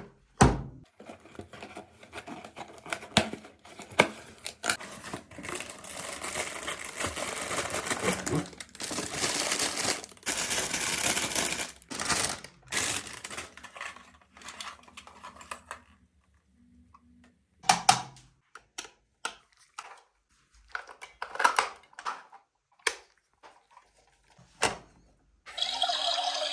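Packaging from a toy coffee machine being unboxed: plastic crinkling and tearing, with sharp clicks and taps of plastic parts being handled. In the second half it turns mostly quiet, with scattered clicks.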